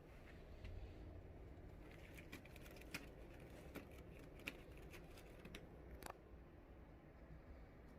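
Near silence: quiet room tone with a low hum and a scattering of faint clicks and taps.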